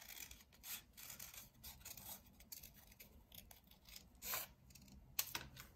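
Scissors cutting around a small circle through two stacked sheets of white paper: a series of quiet, irregular snips.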